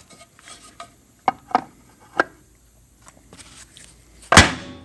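Light clicks and taps as the black plastic top half is set onto the Mohawk closing wheel's plastic and steel body, then one loud knock near the end.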